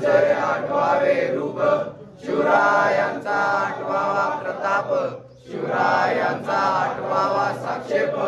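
Men's voices chanting a devotional mantra together in unison, in three long phrases broken by short pauses for breath.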